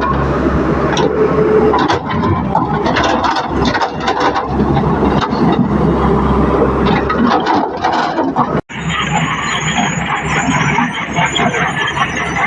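Tracked excavator working: engine running under load with metallic squealing and clanking, cutting out abruptly for an instant about two-thirds through, then resuming with a high hiss.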